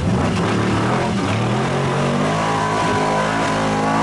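Off-road jeep's engine revving hard under load as it churns through a mud pit and climbs out, its pitch rising about a second in and then held high.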